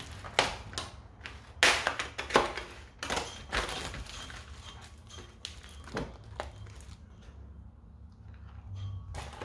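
Kitchen handling sounds as raw chicken mince is put into a mixing bowl: irregular soft thuds and taps, thickest in the first few seconds, then a couple more knocks and a quieter stretch.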